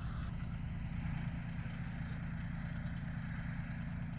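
Bobcat CT2025 compact tractor's diesel engine idling steadily, a low even hum.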